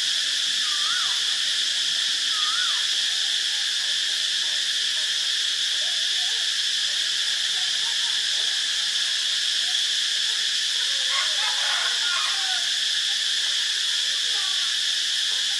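Cicada singing: a steady, high-pitched drone that runs on unbroken.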